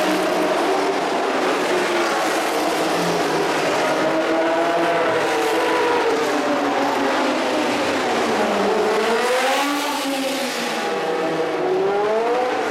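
Race car engines running on the circuit. Several overlapping engine notes rise and fall in pitch as the cars accelerate and change gear, and a car's engine note climbs near the end as one comes past.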